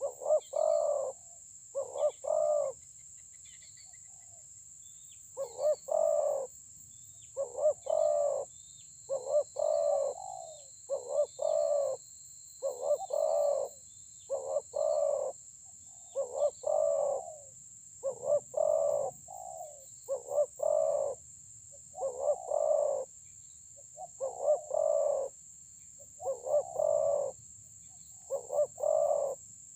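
Spotted dove cooing over and over in short two- to three-note phrases, about one every one and a half to two seconds, with one short pause about three seconds in. A steady high-pitched hiss runs behind it.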